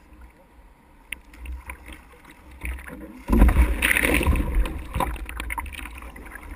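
Rushing surf and water noise around a small motorboat in breaking waves. About three seconds in it jumps to a much louder splashing and wind rumble on a board-mounted action camera's microphone as a surfboard smacks into a surfer.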